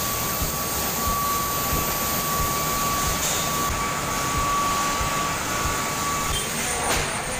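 Bottling-plant machinery running with a steady mechanical din. A thin, high, steady whine rides on top and stops about five and a half seconds in.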